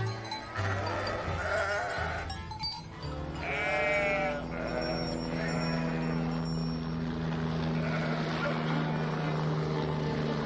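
Sheep bleating, with one long wavering bleat about three and a half seconds in, over background music that settles into held low notes.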